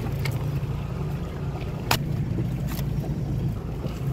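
Boat motor running with a steady low hum, overlaid by a few sharp clicks, the loudest about two seconds in.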